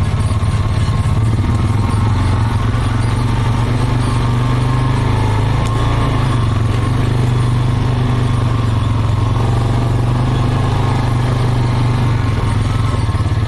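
ATV engine running steadily while being ridden, holding an even pitch with no revving.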